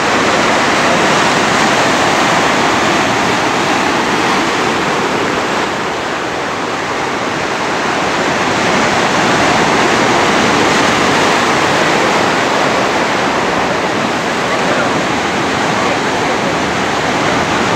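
Surf breaking and foaming over boulders on a rocky shore: a loud, steady rush of water.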